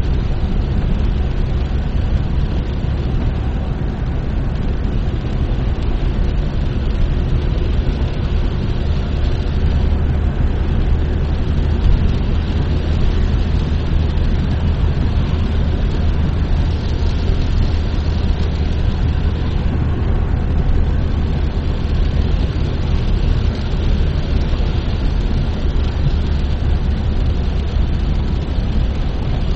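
Car driving on wet asphalt, heard from inside the cabin: a steady low engine and road rumble with tyre hiss from the wet surface.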